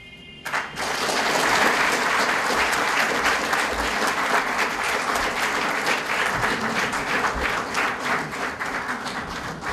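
Audience applauding: many people clapping together, starting abruptly about half a second in and going on steadily.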